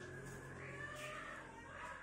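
Faint bird calls: a few soft rising-and-falling whistled notes over a low steady hum that fades out about a second in.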